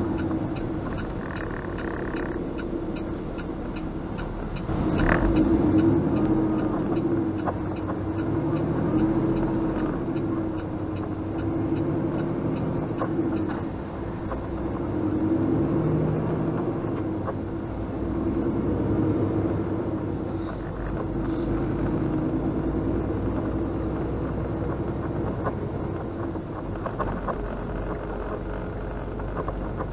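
Semi-truck's diesel engine running while driving, heard from inside the cab; its drone rises and falls several times.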